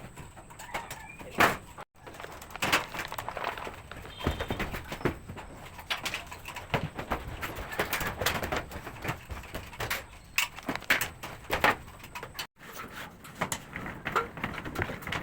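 Irregular knocks and clicks, with doves cooing in the background.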